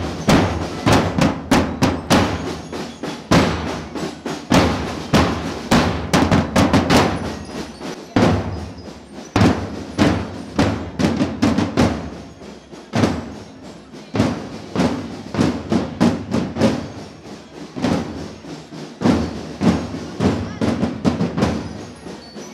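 Marching band drum line: large bass drums struck with mallets, beating a steady, repeated marching rhythm.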